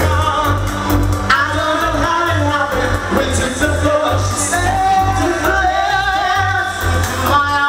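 A group of male singers singing a pop song into microphones, amplified over loud pop music with a heavy pulsing bass beat.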